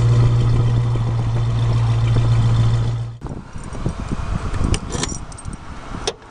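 A steady low hum that cuts off abruptly about three seconds in, then keys jangling with a few sharp clicks and knocks, as a key works the trunk lock of a 1973 Camaro.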